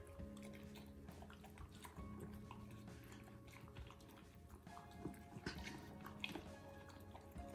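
Two puppies chewing and crunching chopped raw vegetables from a plastic bowl, with scattered crisp bites and clicks. Soft background music with held notes plays under it.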